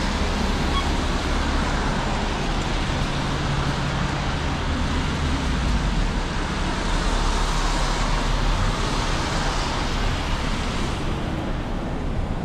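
Downtown street traffic: cars and other vehicles passing in a steady hiss over a low engine rumble, the hiss easing near the end.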